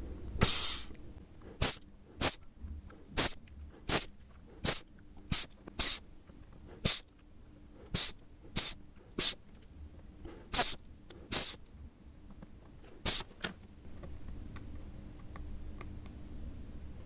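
About fifteen short hissing puffs of air at irregular intervals, the first one longer and the loudest.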